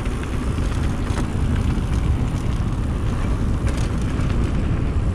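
Steady wind rush over the microphone and low rumble while riding a mountain bike, with a couple of faint clicks or rattles.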